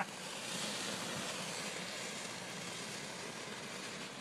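Ground fountain firework spraying sparks: a steady hiss that eases slightly toward the end.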